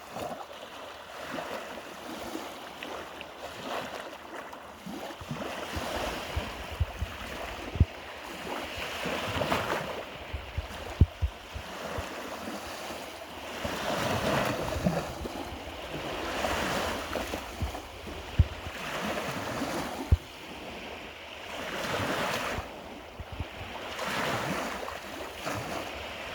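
Small waves of the Gulf of Riga breaking and washing ashore, the surf rising and falling every few seconds, with wind buffeting the microphone in short low thuds.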